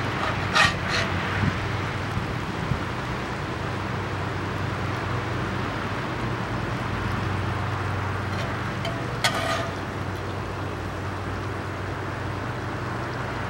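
Thin-sliced steak sizzling steadily on a very hot skillet over the grill, under a low hum, with a few short scrapes about a second in and again about nine seconds in.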